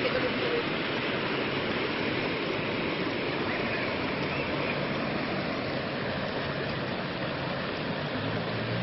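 Muddy floodwater rushing through a street and a concrete drainage channel, a steady rushing noise.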